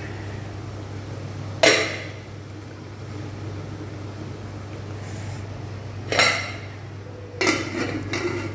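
Aluminium steamer pot and lid clanking: a sharp metal clank a little under two seconds in, another a little after six seconds, then a short clatter as the lid is set back on the pot near the end. A steady low hum runs underneath.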